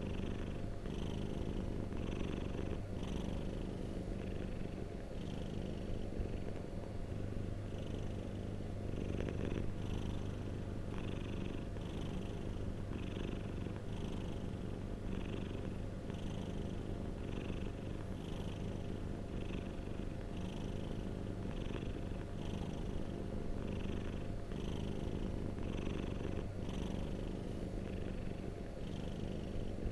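Domestic cat purring close to the microphone, a steady low rumble that swells and eases with its breathing about twice a second.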